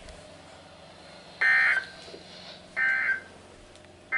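Emergency Alert System SAME end-of-message data bursts: two short, buzzy digital tone bursts about a second and a half apart, signalling the end of a severe thunderstorm warning.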